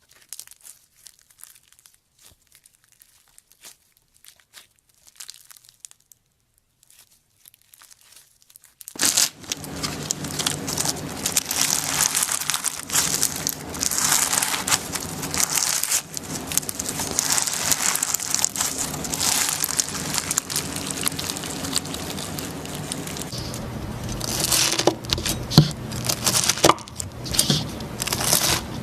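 Slime being squeezed and pressed by hand, making crinkling, crackling sounds. For the first nine seconds or so the crackles are faint and sparse; then they turn suddenly dense and loud.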